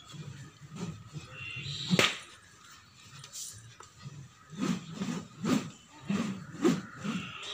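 Bamboo silambam staff swishing through the air in fast, rhythmic spinning swings, about two to three whooshes a second in the second half. There is one sharp crack about two seconds in.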